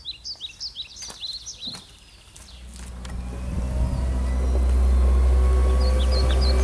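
Small birds chirping in quick rising notes. After about two seconds a small loader's engine comes in, growing louder as it approaches, then running steadily.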